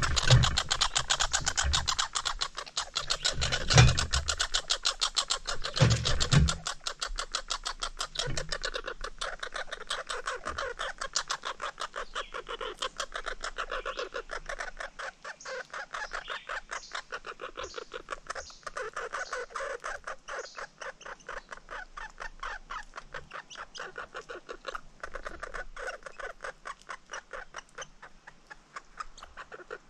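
Squirrel cracking and gnawing sunflower seed shells close to the microphone: a fast, even run of small clicks that goes on throughout. A few low thumps come in the first six seconds.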